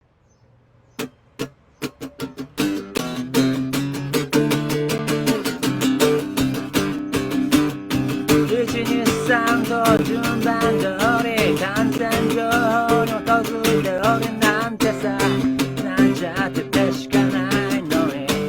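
Acoustic guitar: a few single strums, then steady rhythmic strumming from about two and a half seconds in. A wavering sung melody comes in over it about halfway through.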